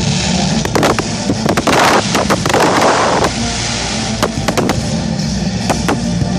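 Fireworks going off in a display: a run of sharp bangs, with a dense crackling shower about two to three seconds in, over a steady low background.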